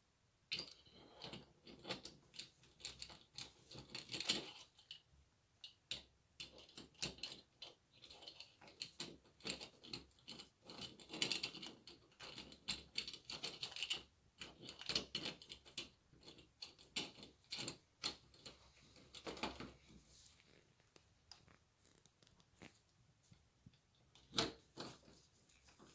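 Doorknob and latch hardware being handled and fitted: irregular metal clicks, rattles and short scrapes, with the louder clatter around the middle.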